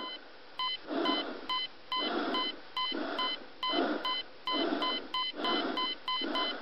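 Electronic intro of a hip-hop beat: short synthetic beeps repeating in quick pairs over muffled, filtered pulses that come about once a second.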